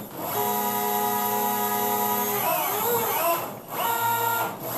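Stepper motors of a CNC hot-wire foam cutter driving the wire through a cut: a steady whine of several tones that, about halfway through, turns into pitches sweeping up and down as the axes trace curves, with brief stops between moves.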